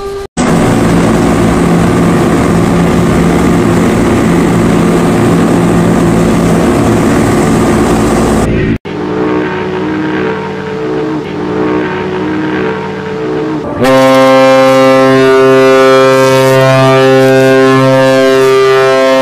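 Ships' horns or whistles sounding one after another. First comes a deep blast of about eight seconds with a rushing hiss through it. It cuts off, and a quieter, higher-pitched blast lasts about five seconds. Then a loud, rich blast of several tones runs for about five seconds more.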